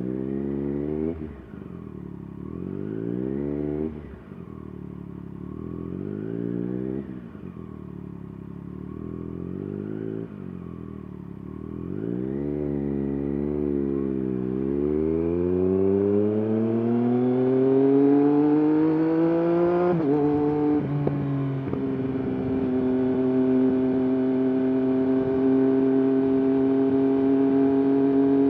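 Triumph Daytona 765 Moto2's three-cylinder engine running under way, its pitch rising and falling every few seconds, then climbing steadily on the throttle. The pitch drops sharply about twenty seconds in, then holds steady and higher.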